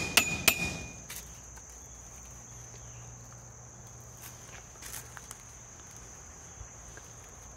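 A few sharp footsteps on a debris-strewn concrete floor in the first second, then a steady high-pitched insect drone with a few faint steps about five seconds in.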